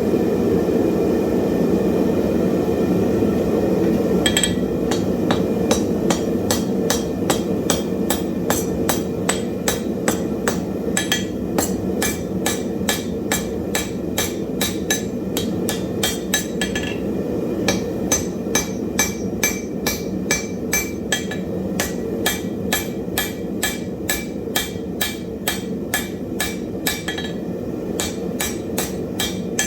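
Hand hammer striking hot wrought iron on an anvil, a quick steady run of ringing blows at about two a second with a couple of short pauses. The hammering starts about four seconds in, over a steady low rumble.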